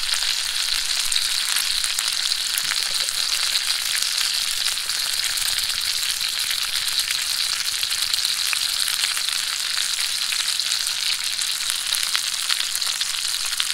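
Trout fillets frying in butter in a pan: a steady sizzle with many small crackles.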